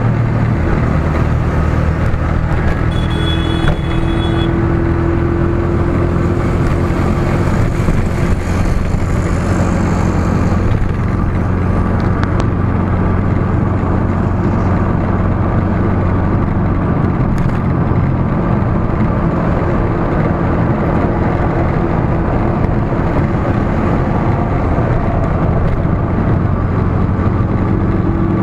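A car's engine and tyre noise while driving in highway traffic, heard from inside the cabin. It is steady, with a brief high-pitched tone about three seconds in.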